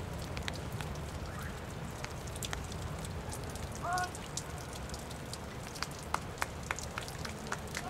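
Raindrops ticking irregularly on an umbrella, thicker near the end, over a steady low rumble. A single short pitched cry comes about four seconds in.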